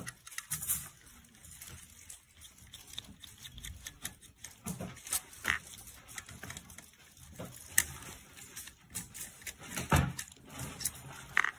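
Small screwdriver turning out the screws of a Mercedes-Benz center-console touchpad housing, with scattered light clicks and taps of metal and plastic being handled. One sharper knock comes near the end.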